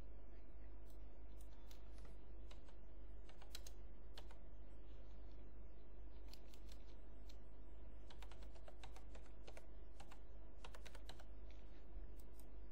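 Keys clicking on a computer keyboard in short, irregular runs as a number is typed, over a steady low hum.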